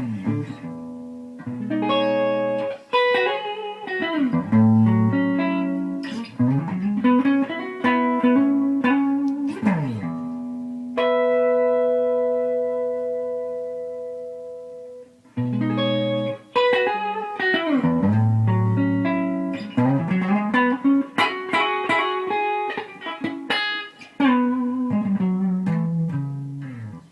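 Gibson ES-359 semi-hollow electric guitar on its neck pickup, played through a Bearfoot Pale Green compressor pedal into a small amp: a clean single-note riff with bends and slides, then a chord left to ring out for about four seconds, and the riff starts again.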